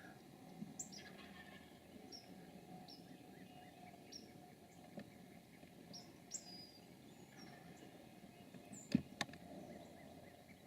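Small birds chirping: short, high, downward-sliding chirps repeating every second or so over a faint background hiss. Two sharp clicks close together about nine seconds in.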